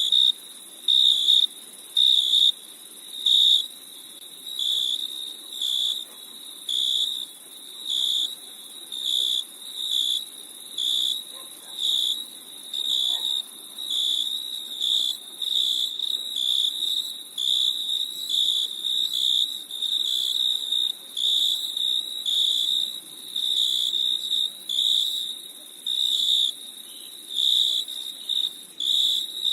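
Crickets chirping: a high, single-pitched chirp that repeats about once a second, over a steady high hiss.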